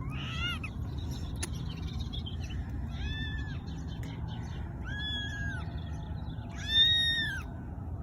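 Young kittens meowing in four high, thin cries a second or two apart, the last the loudest, over a steady low rumble. The kittens are crying from hunger and fear.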